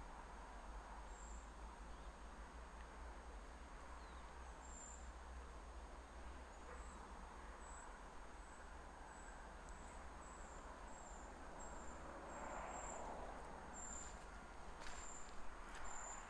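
An insect chirps in short, high-pitched notes about twice a second, starting some five seconds in, over a faint steady hush of still outdoor air. A few faint clicks come near the end.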